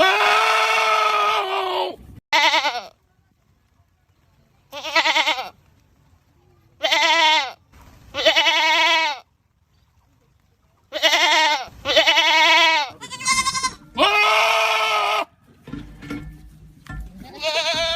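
Goats screaming: a string of about ten loud, bleating calls, each lasting half a second to two seconds, separated by short silences. Several calls quaver in pitch.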